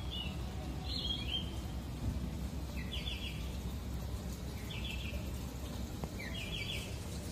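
About five short bird chirps, each a quick cluster of high notes, come a second or two apart over a steady low background hum.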